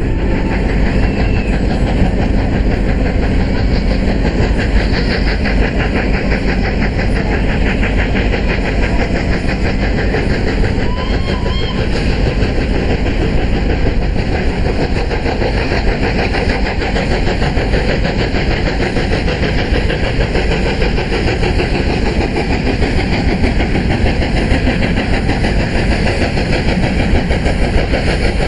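Hudswell Clarke 0-6-0 saddle tank steam locomotive working hard up a gradient, loud and steady, with a rapid pulsing beat.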